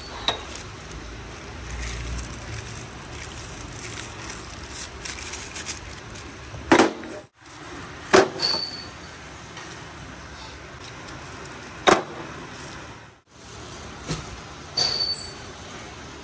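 Bagged steel truck kingpins being handled and set down on a steel sheet: four sharp knocks of metal on metal, some with a short metallic ring, amid the rustle of plastic bags.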